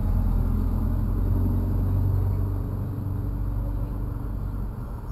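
A motor vehicle's low engine rumble on the street, easing off after about two and a half seconds.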